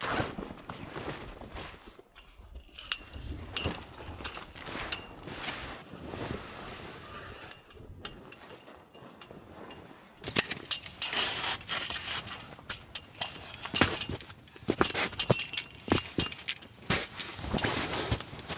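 Camping gear being handled, with irregular clinks, knocks and crunching in snow, busier and louder over the second half.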